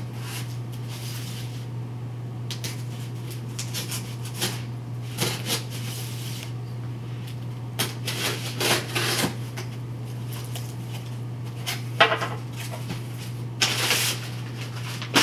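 Hands opening and handling a cardboard shipping box and its packing: scattered knocks, scrapes and rustles, with a longer stretch of rustling near the end, over a steady low hum.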